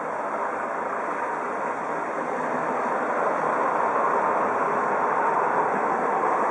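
Eurocopter EC 135 twin-turbine police helicopter flying low overhead, a steady rotor and turbine noise that grows gradually louder.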